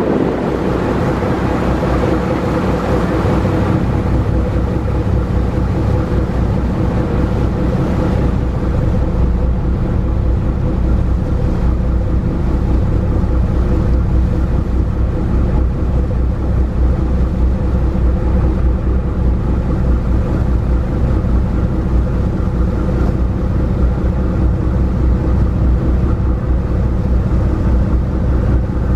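A ferry's engines droning steadily, heard on board as a constant low hum with some wind and water noise that eases off over the first few seconds.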